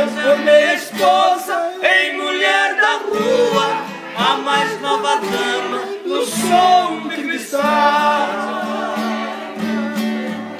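Song with male voices singing together over guitar accompaniment.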